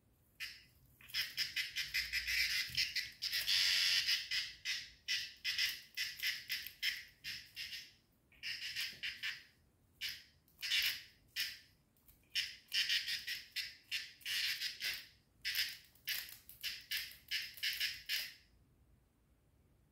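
A small winged insect buzzing in rapid, high-pitched pulsed bursts as a cat paws at it. The bursts come in runs of a few seconds with short pauses and stop a little before the end.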